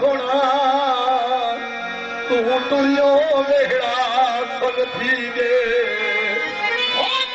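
Punjabi Sufi kalam being sung: one long, ornamented melody line with wide vibrato over a steady held drone.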